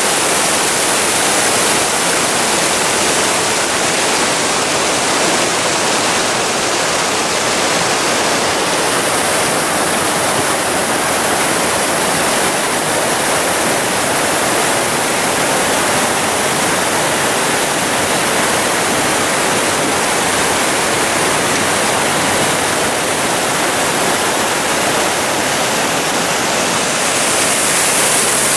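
Fountain water cascading and splashing into a stone pool, a loud, steady rushing.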